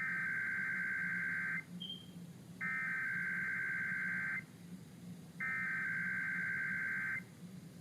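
Emergency Alert System SAME header: three identical bursts of digital data tones, each about one and a half seconds long and about a second apart. This is the coded header that opens a Required Monthly Test alert, heard off-air over AM radio.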